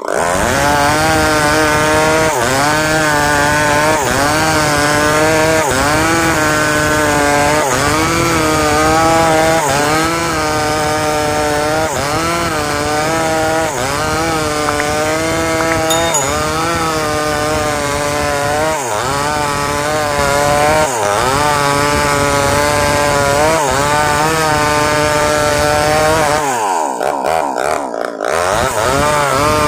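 Two-stroke petrol chainsaw running at full throttle, ripping a log lengthwise along the grain. The engine note wavers and sags again and again as the chain bites into the wood, and near the end it drops off sharply and then revs back up.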